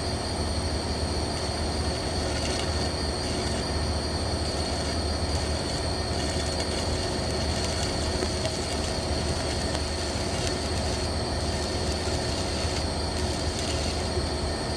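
Welding arc burning steadily on a 1-inch steam pipe: a continuous hiss with a steady high whine over a low electrical hum.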